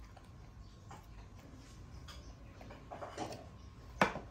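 Faint clicks and mouth smacks of a pet macaque eating a piece of fruit. A short louder patch about three seconds in, then one sharp knock about four seconds in, the loudest sound.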